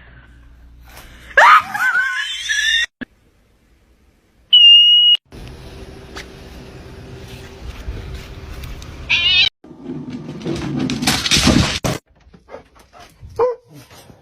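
Several short clips cut together: an animal's wavering, rising cry about a second and a half in, a brief steady high beep, and other scattered noises, with abrupt cuts between them.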